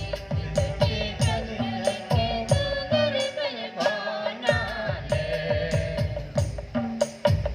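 Music: a hand drum played in a quick rhythm, its deep strokes dropping in pitch, under a wavering melody.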